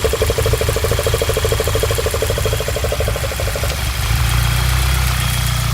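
Internal combustion engine running with a rapid, even knocking, the engine knock the owner is showing. About two-thirds through the knocking stops and the engine carries on with a steadier, deeper hum.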